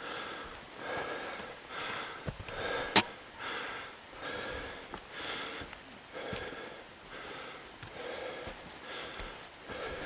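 Heavy breathing of a hiker walking a forest trail, a breath about every second, the sign of a man whose lungs are struggling with the hike. One sharp click about three seconds in.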